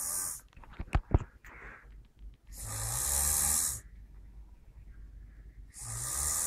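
A person snoring: long drawn breaths with a low flutter, about one every three seconds. Two sharp clicks about a second in.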